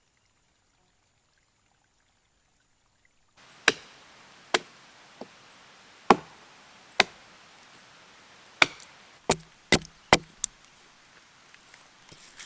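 Chopping strikes, about ten sharp blows at uneven spacing, starting after a silent first three seconds, with several coming close together near the end.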